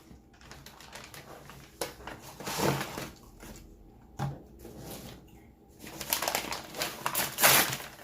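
Eating sounds up close: chewing and crunching food in a few separate short bursts, with a quicker run of crisp crunches about six seconds in.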